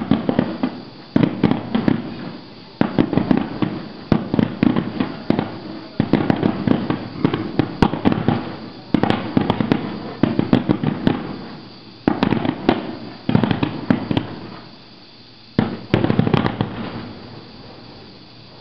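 Fireworks finale: aerial shells bursting in volleys, each a dense cluster of sharp bangs in quick succession, a new volley every one to two seconds, dying away near the end.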